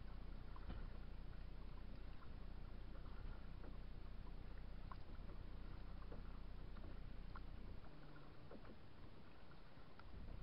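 A kayak moving on a lake: faint water lapping with small splashes and light ticks from the hull and paddle, over a steady low rumble that drops away briefly near the end.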